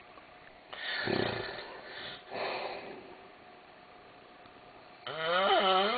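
A man snoring heavily in his sleep. There is a rough, rattling snore about a second in and a shorter breath around two and a half seconds. Near the end comes a loud, drawn-out pitched snore that wavers up and down in pitch.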